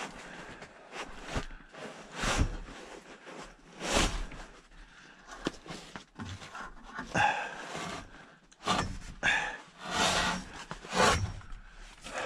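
Fabric rustling with irregular knocks and clicks as heavy camouflage clothing is handled and hung on metal hooks along a wooden rail.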